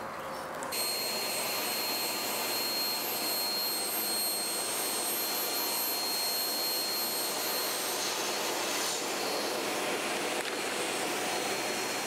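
Table saw running with a steady high whine, starting about a second in, as it rips the back edge off a short piece of wood trim molding.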